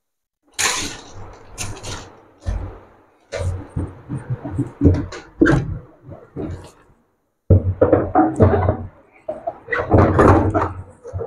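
Irregular knocks, thumps and rattles of an RO water purifier's plastic cabinet and tubing being handled and hung back on the wall, getting busier after about seven and a half seconds.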